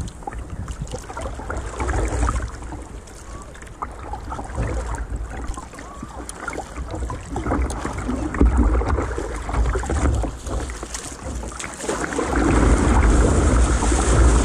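Sea water slapping and splashing against the hull of a plastic sit-on-top kayak in choppy water, with wind rumbling on the microphone. About twelve seconds in the water noise grows louder and fuller as broken surf rushes around the kayak.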